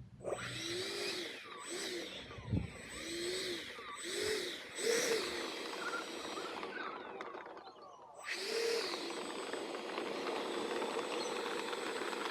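Small electric motor of a steerable nose-gear retract unit whining in a run of short rising-and-falling strokes about a second apart, then after a brief pause running more steadily.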